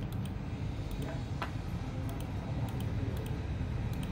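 A computer mouse clicking a few times over a steady low hum.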